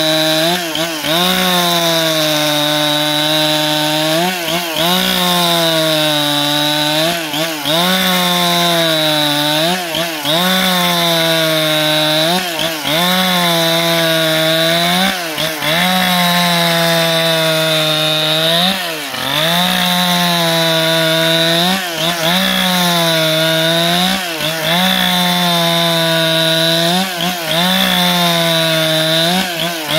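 Husqvarna 395 XP two-stroke chainsaw at full throttle, ripping lengthwise along a log to saw a plank. Its engine pitch dips briefly and recovers every two to three seconds as the chain takes and eases the load of the cut.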